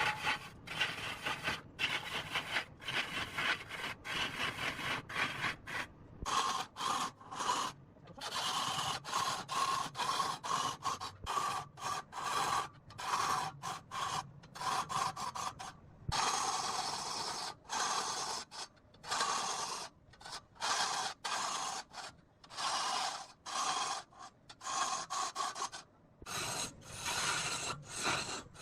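Turning tool cutting into a spinning rosewood log on a lathe: a noisy scraping hiss that keeps breaking off in short gaps and starting again.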